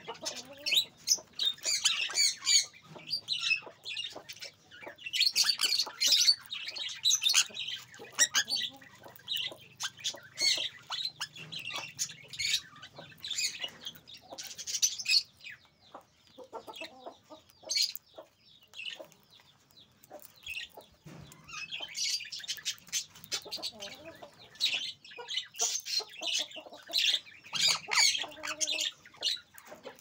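A group of sun conures squawking and chattering in high-pitched bursts, with many sharp little clicks of beaks cracking seeds. The calling eases off for a few seconds past the middle, then picks up again.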